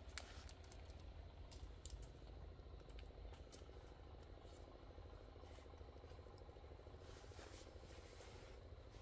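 Near silence: a low steady rumble with a few faint, scattered clicks.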